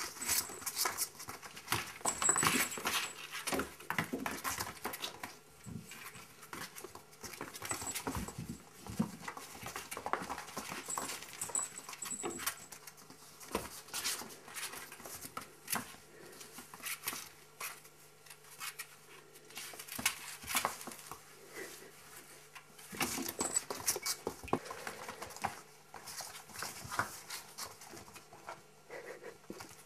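Month-old kittens wrestling and scampering on a floor: irregular scuffling, patter of small paws and claws, with louder flurries now and then.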